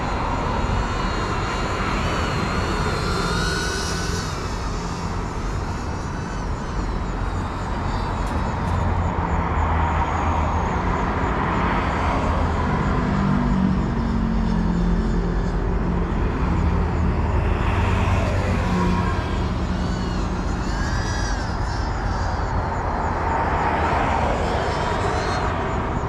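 GEPRC CineLog 35 FPV drone flying, its motors whining and rising and falling in pitch as the throttle changes, over a steady low rumble.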